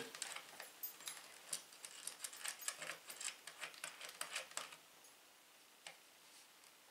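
Small metal nut being spun by hand onto a threaded rod, giving faint, irregular light metallic clicks and ticks for the first four to five seconds, then a single click near the end.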